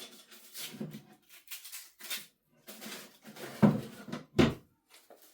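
Someone rummaging through supplies for sandpaper: scattered light clatters and rustles, with two louder knocks less than a second apart in the second half.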